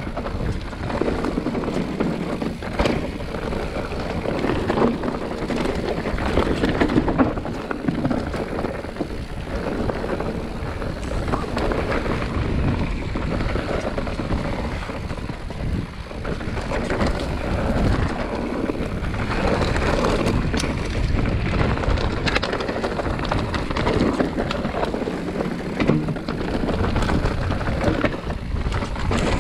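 Mountain bike riding down a rough trail: steady tyre and wind noise with frequent knocks and rattles over rocks, and wind buffeting the microphone.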